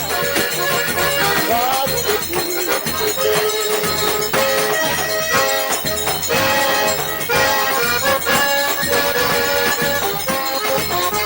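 Forró pé de serra played on a sanfona (button or piano accordion), its sustained reedy chords and melody over a steady low bass beat. Shaker-like rattling percussion keeps time.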